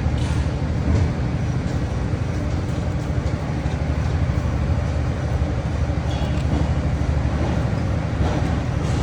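Steady low mechanical drone, like a machine or motor running, with a few faint light clicks.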